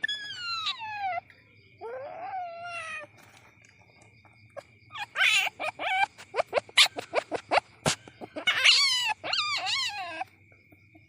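Baby civet calling: high squeals that slide down in pitch, then a rapid run of short chirps, then wavering squeals.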